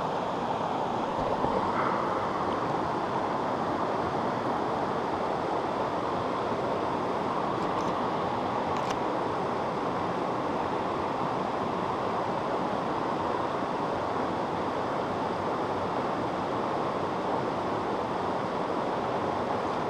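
Steady rushing of river water spilling over a small cascade into a rock pool, an even noise that holds at one level throughout.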